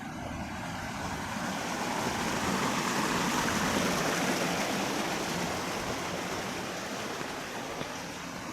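A vehicle passing on a rain-wet road: a rushing hiss of tyres on water that swells to its loudest about halfway and then fades away.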